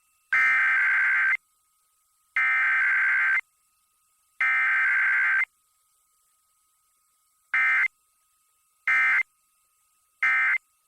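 Emergency Alert System SAME data tones: three bursts of warbling two-tone digital signal about a second long each, a second apart, then three much shorter bursts. The long bursts are the coded alert header and the short ones the end-of-message code.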